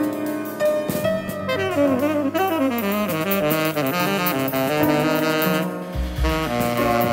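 Tenor saxophone playing a fast, winding jazz line over a drum kit, with cymbal strokes ringing behind it. Deep low notes come in about six seconds in.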